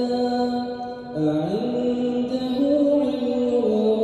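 A man reciting the Quran in a slow, melodic chant, holding long notes; about a second in, his voice breaks off briefly, then slides up in pitch to a new held note.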